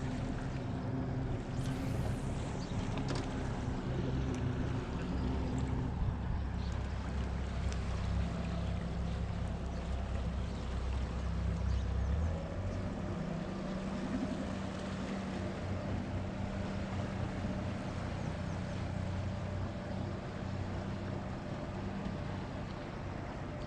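Boat motor running steadily. Its hum shifts about six seconds in and drops lower and quieter about twelve seconds in, as the throttle is eased.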